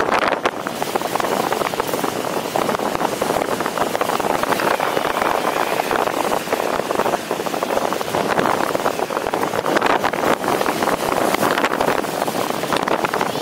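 Rushing air buffeting the microphone in a paramotor descent with the engine switched off. A steady, loud wind noise that flutters throughout, with no engine heard.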